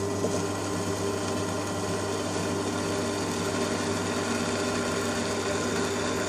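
Ryobi benchtop drill press running steadily at slow speed, about 600 RPM, while a small bit drills a pilot hole into a ball bearing: a constant motor hum with the even hiss of the bit cutting metal.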